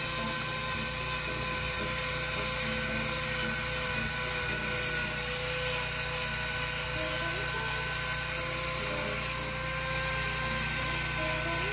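Corded electric angle grinder running at a steady high whine as it grinds down a cow's overgrown hoof.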